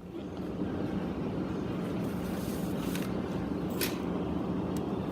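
Steady engine and road noise of a car being driven, with a low hum under it and one faint click near the end.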